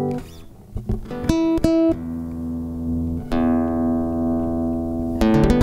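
Nylon-string electro-classical guitar, a Harley Benton HBO-850 roundback, played through its pickup. After a short lull, a few single plucked notes come about a second in, then chords are struck and left to ring at about two seconds, just after three seconds and again near the end.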